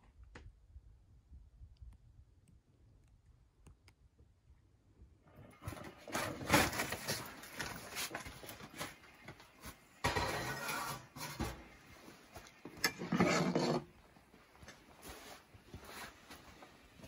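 Faint ticks at first. About five seconds in, irregular clattering and scraping begins as a cast iron skillet is handled on top of a wood stove and fried bannock is lifted out. The loudest scrapes come about six and a half, ten and thirteen seconds in.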